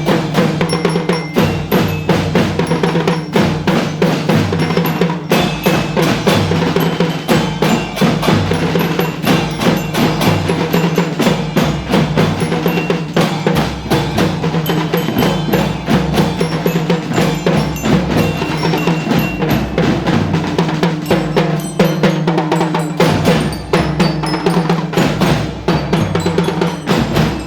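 Marching band playing a march, with rapid drumming and the ringing notes of a bell lyra (marching glockenspiel) over sustained low band tones, without a break.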